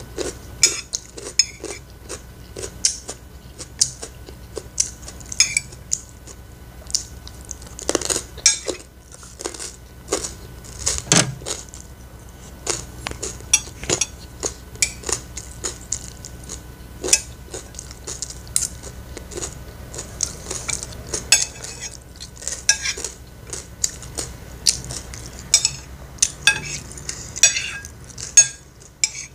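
Stainless steel spoon and fork clinking and scraping against a ceramic plate while scooping fried rice: many short, irregular clicks and scrapes.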